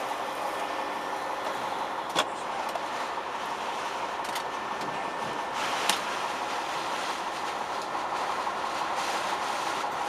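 Storm wind and heavy rain buffeting a semi truck's cab, heard from inside: a steady rushing noise, with two sharp knocks about two seconds and six seconds in.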